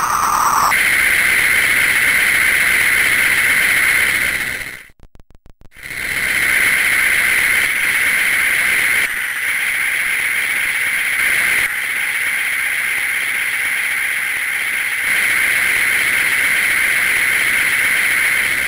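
Circuit-bent toy chainsaw's sound chip giving a steady, harsh engine-like buzz. It drops out for about a second with a few clicks about five seconds in, then starts again.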